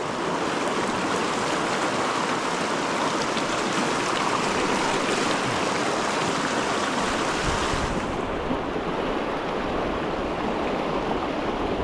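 Steady rushing of the Pecos River's flowing water. About eight seconds in it turns duller, losing its high hiss while a low rumble comes up.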